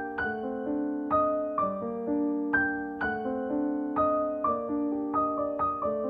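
Background piano music: gentle single notes struck about twice a second, each ringing and fading under the next.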